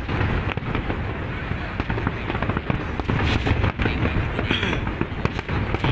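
Aerial firework shells bursting one after another in quick succession: a steady run of low booms mixed with crackle.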